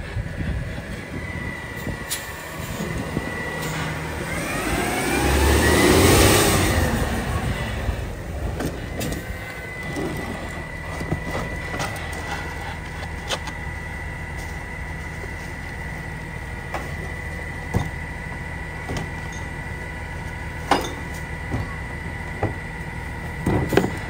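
Rear-loader garbage truck with a McNeilus body idling at the curb, with a steady high whine from about nine seconds in. A louder swell comes about six seconds in, and a few sharp knocks come near the end as trash is handled at the hopper.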